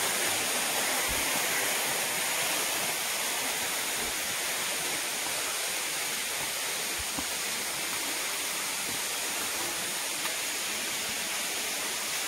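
Steady rushing noise of flowing water, even and unbroken, with a few faint low thumps.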